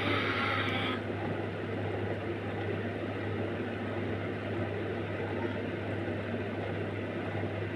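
Steady low hum under a faint even hiss, the constant background noise of the room or an appliance, with a brief brighter hiss in the first second.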